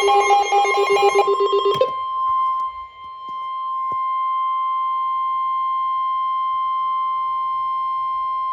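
Emergency alert tones: a rapidly pulsing electronic warble ends about two seconds in. It gives way to a single steady high tone, the 1050 Hz weather-radio warning alarm, held for about seven seconds and then cut off sharply, signalling that a warning message follows.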